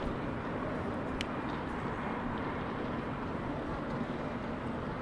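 Steady city street ambience: an even wash of urban background noise with a faint steady hum, likely traffic, and a single sharp tick about a second in.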